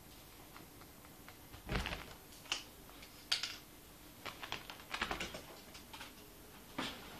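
Kitten's claws catching and scratching on a carpeted door as it scrambles up onto a kitchen worktop: irregular clicks and taps, some in quick runs, with a couple of dull thumps.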